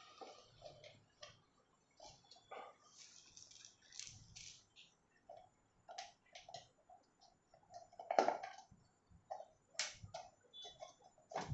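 Scattered small clicks and taps of screws and parts being handled and fitted into an electric kettle's base, irregular, with louder clicks about eight and ten seconds in.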